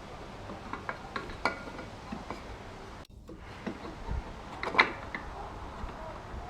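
Scattered light clicks, clinks and knocks of metal parts and hand tools being handled while a chipper shredder is worked on, with one louder clank near the five-second mark. The sound briefly cuts out about three seconds in.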